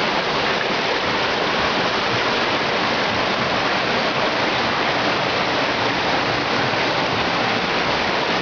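Steady rush of an underground stream of water flowing through a cave.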